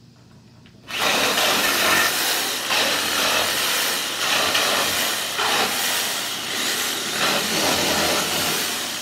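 Hyper Tough reciprocating saw with a long Lenox blade, starting suddenly about a second in and sawing through the nails that hold a pallet board, its rasp swelling and dipping as the blade works, easing off near the end.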